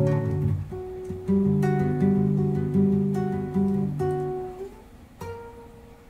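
Acoustic guitar playing plucked notes over low chords. The phrase fades out near the end, and one last note rings on.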